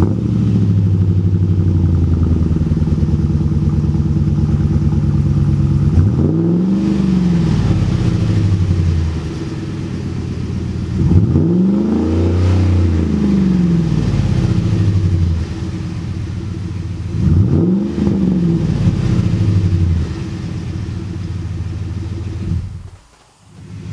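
2012 Ford Raptor's 6.2-litre V8 running through a Roush cat-back exhaust, idling just after start-up and revved three times, each rev rising and falling over about three seconds. The sound cuts out briefly near the end.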